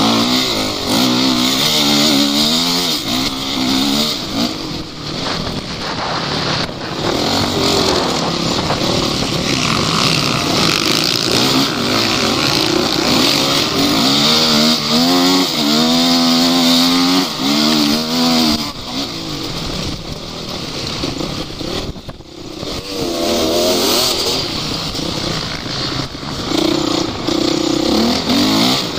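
Off-road vehicle engines revving hard and falling back, over and over, with the engine note climbing and dropping in repeated runs.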